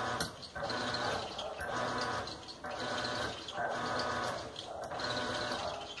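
Washing machine motor running the agitate cycle: a hum in bursts of under a second with short pauses between them, about once a second, as the agitation switches back and forth.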